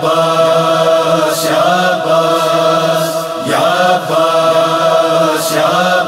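A chorus of voices chanting long held notes in the opening of a noha, an Urdu Muharram lament, the line changing every couple of seconds.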